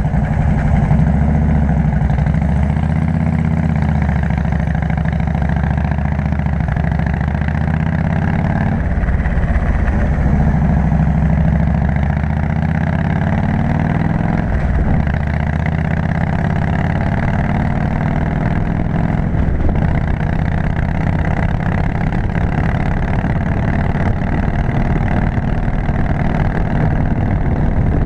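Harley-Davidson V-twin engine running steadily as the motorcycle cruises on the road. The engine pitch shifts briefly about nine seconds in and again about fifteen seconds in.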